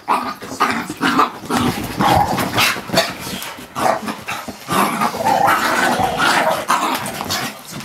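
Two dogs play-fighting, growling and barking in quick, uneven bursts.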